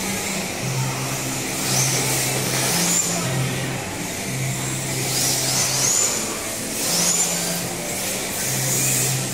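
Electric RC drift cars' motors whining up in pitch again and again as the cars accelerate, about half a dozen times, over a steady hiss.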